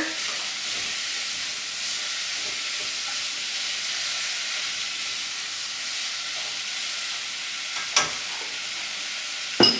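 Diced apples sizzling in melted butter in a pot on the stove, a steady frying hiss as they are stirred. Two sharp clicks come near the end.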